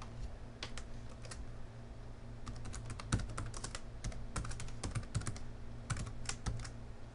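Computer keyboard typing: a few keystroke clicks just before a second in, then a quick run of keystrokes from about two and a half to six and a half seconds, over a steady low hum.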